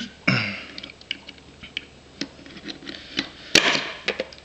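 A pin punch clicking and tapping against the trigger pin in a SIG Pro SP2340 pistol frame as the pin is pressed out: irregular small clicks, with the loudest about three and a half seconds in.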